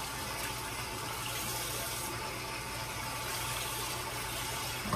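Kitchen tap running in a steady stream, shut off abruptly near the end.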